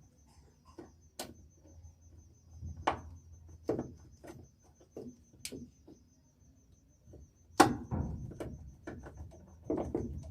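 Scattered clicks and knocks of hand work on a washing machine as a new motor capacitor is fitted, the loudest knock about three quarters of the way in.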